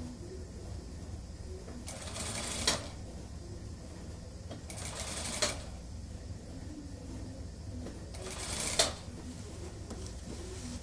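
Industrial lockstitch sewing machine stitching a suit sleeve into the jacket's armhole in three short runs, each about a second long and ending with a sharp click, while the sleeve cap's fullness is eased in by hand.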